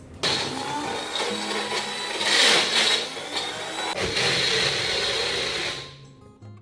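Portable blender running, grinding roasted brinjal pulp, green chilli paste and tamarind into a chutney, with a steady high whine. It starts right at the beginning, is loudest a little before halfway, and cuts off about six seconds in.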